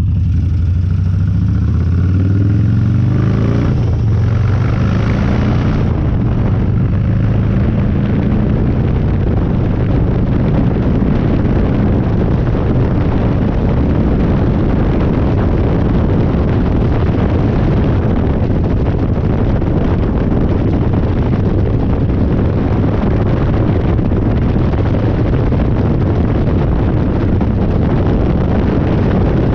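Harley-Davidson Dyna V-twin accelerating, its pitch climbing twice as it shifts up through the gears in the first few seconds. It then settles into a steady drone at cruising speed under heavy wind rush on the microphone.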